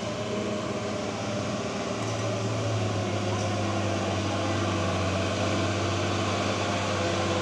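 Mitsubishi Fuso 6x4 truck's diesel engine pulling steadily at an even pitch as the truck climbs a dirt slope, growing gradually louder as it comes closer.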